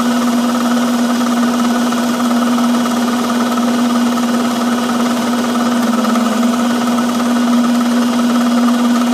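An electric shop machine running at a steady speed: a loud, even motor hum with one strong steady tone, not changing in pitch or level.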